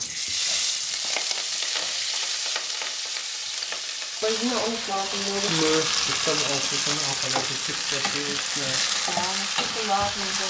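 Broccoli frying in hot oil in a pan, a steady sizzle that starts suddenly as it goes in. About four seconds in, pitched tones that step between notes come in underneath the sizzle.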